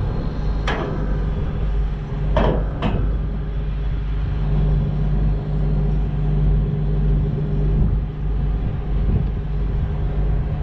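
Case IH 7088 combine's engine running steadily, with three sharp clunks in the first three seconds as a power-folding section of the machine is lowered.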